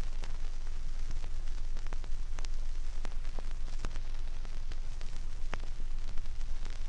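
Surface noise from a 16⅔ rpm Seeburg background-music vinyl record playing the silent groove between songs: a steady hiss and low rumble with scattered clicks and pops.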